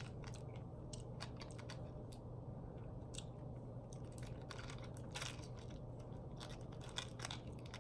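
Faint, scattered crinkles and clicks of a small wrapped candy being picked at with the fingers to get it open.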